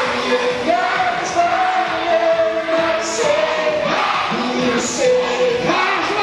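Music with singing, played loud in a large hall, with long held sung notes.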